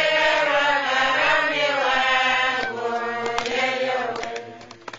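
A group of men singing a chant together, their voices holding long, drawn-out notes, fading out near the end.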